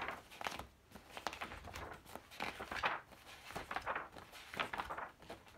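Faint handling noise: scattered light rustles and soft taps as a small shot bottle is turned over in the hands.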